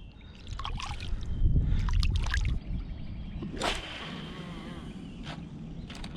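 Water sloshing and splashing close by, with scattered knocks and clicks and a low rumble between about one and two and a half seconds in.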